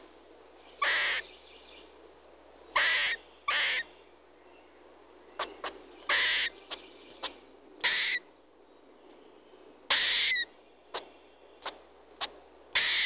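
Red squirrel giving harsh, rasping calls, about seven in all, each about half a second long and one to two seconds apart, with shorter faint clicks in between.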